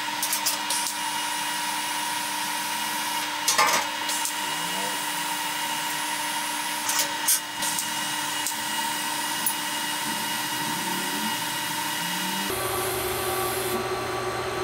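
TIG welding a titanium exhaust flex joint: a steady arc hiss with a constant buzzing tone, crackling in short patches. Near the end the sound changes to a lower, steady hum.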